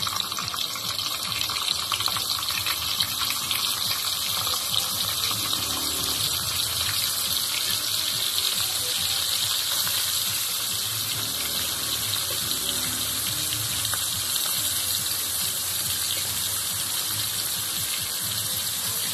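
Hot oil sizzling and crackling steadily in a wok as flour-dusted fish steaks fry.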